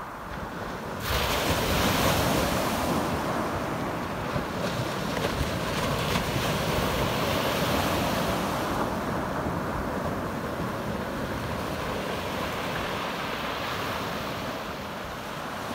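Small sea waves breaking and washing over a pebble beach, with wind rumbling on the microphone. A wave breaks about a second in and its wash runs on strongly for several seconds before easing.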